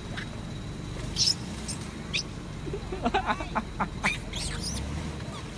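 Young long-tailed macaques giving short, high squeaks and squeals: one sharp squeal about a second in, then a quick run of them between about three and four and a half seconds.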